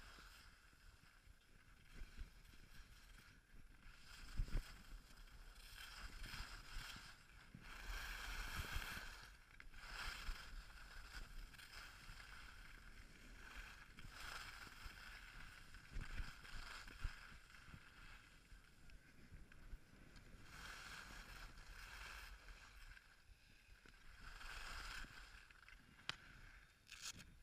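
Skis sliding and scraping over a groomed snow piste, the hiss swelling with each turn every two to four seconds, with a few sharp knocks.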